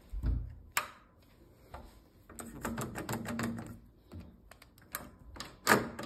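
Clicks and rattles of a Kwikset Pizmo door knob's push-button lock and latch as the button is pressed and the knob is turned, testing that the lock engages. A dull knock at the start, then a run of sharp clicks, loudest near the end.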